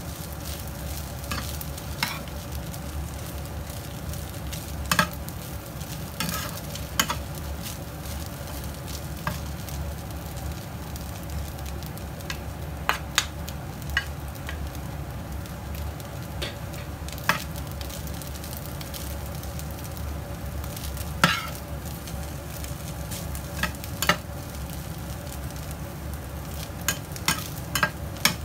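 Fried rice stir-fried in a nonstick frying pan: a steady low sizzle over a low hum, broken by irregular scrapes and taps of a metal spatula against the pan.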